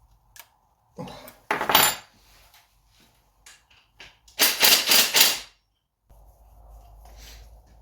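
Metal parts of a dismantled moped engine clinking and clattering as they are handled on the bench, with a louder run of several clanks about four and a half seconds in.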